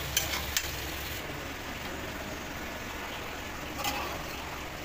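A metal spatula clicks against a steel kadai three times in the first second as sliced onions are stirred, over a steady low hiss of frying. There is a softer knock near the end.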